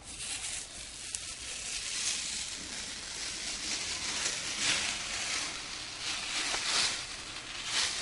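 Green FrogTape painter's tape being peeled back off a plywood subfloor and away from wet paint: a continuous noisy rip, swelling louder now and then.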